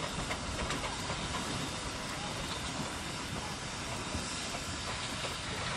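Steam traction engines working hard, with a steady hiss of steam.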